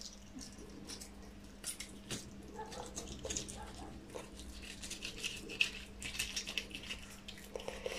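Knife scraping scales off a large carp, starting at the tail: a faint run of small scratchy clicks that grows denser and brighter past the middle, over a steady low hum.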